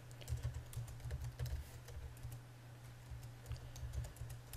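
Typing on a computer keyboard: an irregular run of quick key clicks over a steady low hum.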